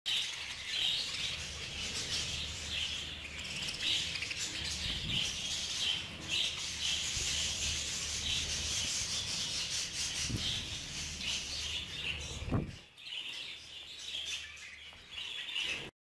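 A flock of budgerigars chattering and chirping continuously while they peck at food, with many small scratchy clicks of beaks working through the food. A brief low rising sound stands out about three-quarters of the way through, and the chatter is quieter after it.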